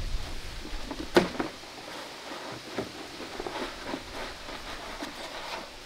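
Roof work on a small wooden shed: one sharp knock about a second in, then scattered light taps and rustling as materials are handled on the roof.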